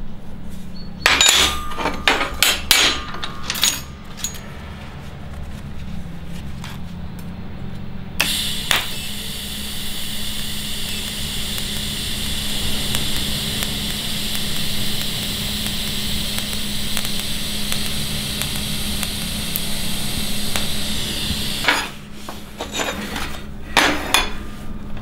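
A few sharp metallic knocks and clinks, then a welding arc hissing steadily for about thirteen seconds. The arc starts suddenly about eight seconds in and cuts off near the end, over a low steady hum.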